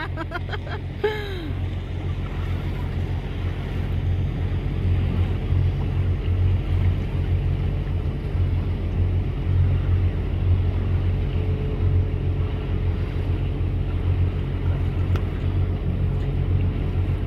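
Motorboat engine running steadily with a low drone, over wind and water noise on open sea.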